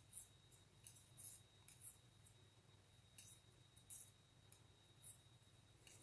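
Faint, irregular clicks of knitting needles tapping together as stitches are knitted off, roughly one a second.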